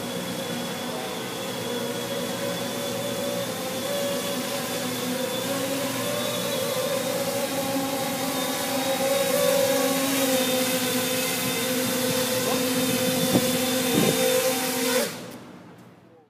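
Custom-built quadcopter's electric motors and propellers buzzing steadily, growing louder as it comes down near the ground. A couple of sharp knocks come near the end, and the buzz cuts off about fifteen seconds in.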